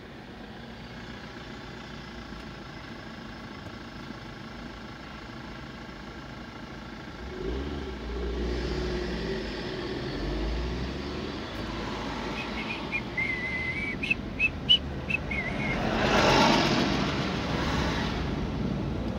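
Traffic heard from inside a car waiting in a queue. A double-decker bus's engine rumbles as it draws close alongside, then a high squeal comes with a few sharp clicks, and another vehicle rushes past near the end.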